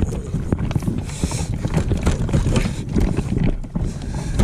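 Wind rumbling on the microphone, with irregular knocks and clunks from a kayak and its wheeled landing gear being handled.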